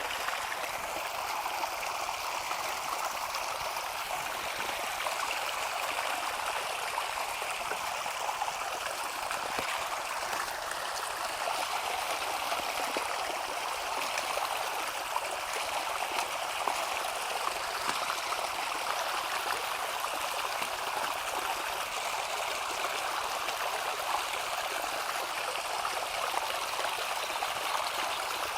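Running water, a steady, even rush.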